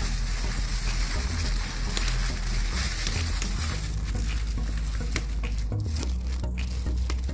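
Aluminium foil crinkling and crackling as it is crumpled and pressed by hand around a potato, over a steady low rumble.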